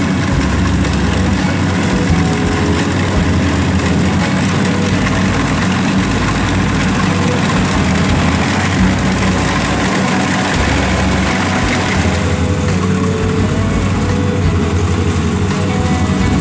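Kubota DC70 Plus combine harvester running steadily in a rice field, its diesel engine and cutting and threshing machinery going together. The sound changes a little about twelve seconds in, with less hiss on top.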